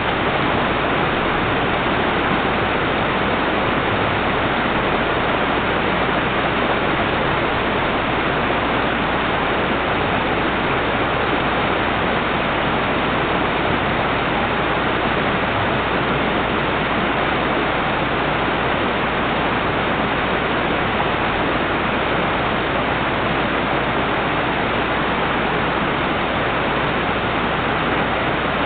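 Steady, unbroken rushing of water.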